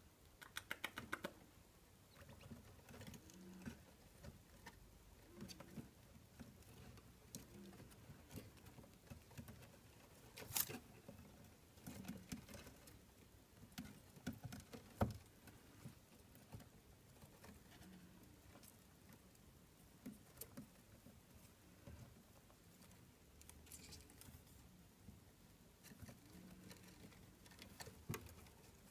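Degus scurrying and scratching about their cage shelves: faint taps and clicks of small claws, with a quick run of clicks about a second in and two louder knocks midway.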